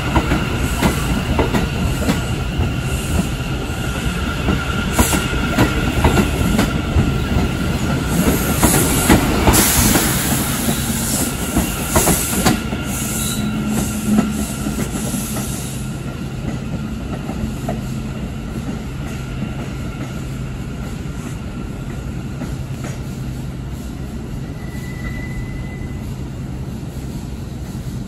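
New York City Subway train passing close by and pulling away, its wheels clicking over rail joints and squealing, with a loud high-pitched screech about eight to sixteen seconds in. The sound then fades steadily as the train recedes.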